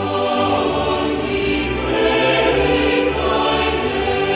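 Background choral music: a choir singing slow, held chords, the harmony shifting every second or so.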